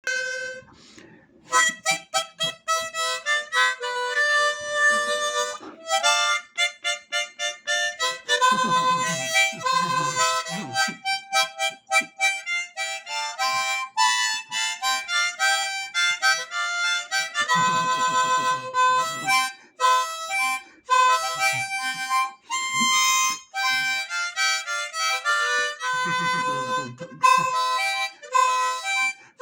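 Harmonica playing a tune, held notes and quick runs with short breaths between phrases.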